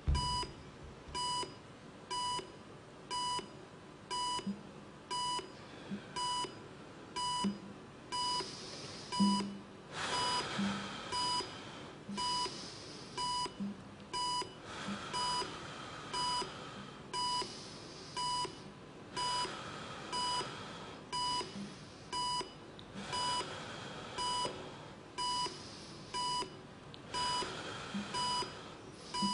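Electronic beeper giving a short, steady beep about once a second. From about ten seconds in, bursts of hiss come roughly every four seconds between the beeps.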